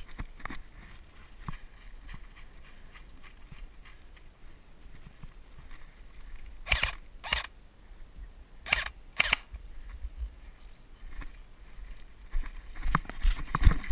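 Airsoft gun firing four single shots in two quick pairs, the pairs about a second and a half apart, with a few small knocks near the end.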